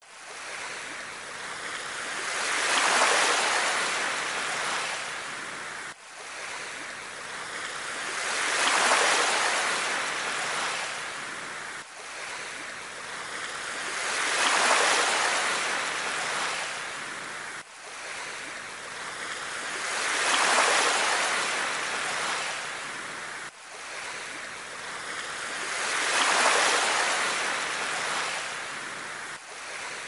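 Rushing water that swells and fades in even cycles of about six seconds, each cycle cutting off sharply before the next begins. It is one short recording played over and over on a loop.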